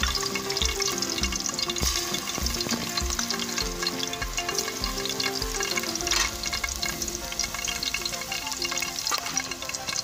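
Chopped garlic sizzling in hot cooking oil in a steel pan, over background music with held notes and a regular low beat.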